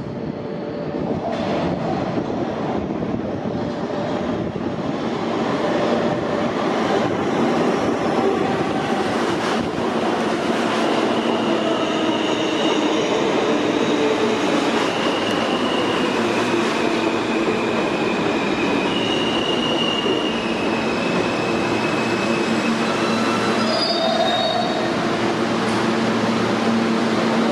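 R160A subway train pulling into the station on a curved track, its wheels rumbling on the rails and getting louder over the first several seconds. High, held wheel squeals come and go through the middle and later part as it slows. A steady hum sets in near the end as it comes to a stop.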